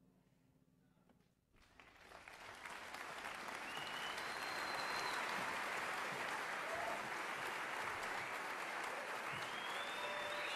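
Audience applause breaking out about a second and a half in and swelling to a steady level, after the last note of the music fades away.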